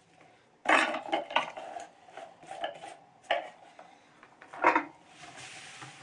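Plastic canister of a tub vacuum handled and knocked while its motor head is lifted off and the tub, packed with polystyrene beanbag beads, is tipped over: rustling, clattering beads and several sharp plastic knocks, with a hiss of pouring beads near the end.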